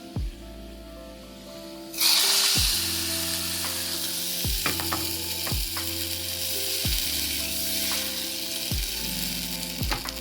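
Hot oil in a kadai bursts into loud sizzling about two seconds in, as curry leaves go into a tempering of mustard seeds and urad dal, then keeps frying steadily. Background music with a regular low beat runs underneath.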